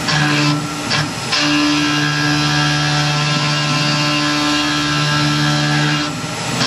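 Tormach PCNC 1100 CNC mill's end mill cutting aluminum at 4000 rpm: a steady pitched cutting tone over a hiss. The tone breaks briefly a couple of times early on and shifts near the end.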